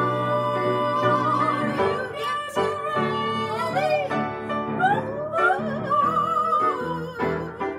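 A woman singing in a classical, operatic style with wavy vibrato on held notes, accompanied by an upright piano.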